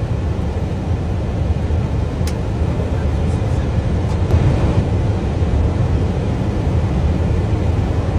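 Steady low rumble of airflow and engines inside an airliner cockpit on approach to landing, with a single sharp click about two seconds in.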